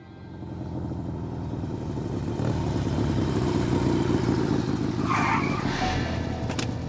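Motorcycle engine coming closer and growing louder, then easing off to a steadier, lower running sound as the bike pulls up and stops.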